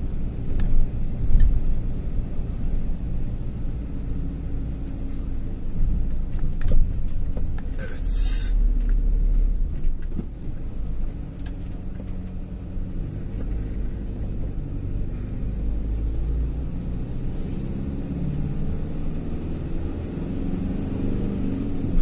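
Car engine and road noise heard from inside a moving car: a steady low rumble, with a brief hiss about eight seconds in.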